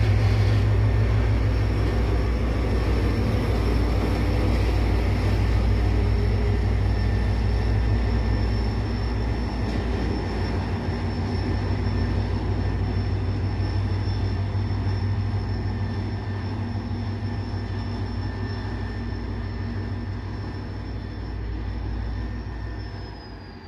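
Two EMD diesel locomotives, a G26CW and a GT22HW-2, running their two-stroke engines with a deep, steady throb as they pull a freight train away, the sound slowly fading with distance. A thin, steady high whine sits above the engine sound.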